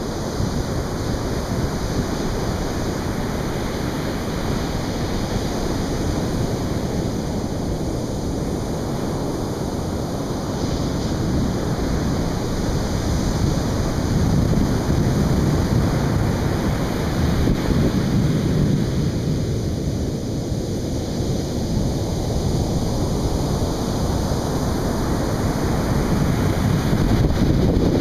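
Atlantic surf breaking on a beach in a continuous rush that swells and eases slowly, with wind buffeting the microphone.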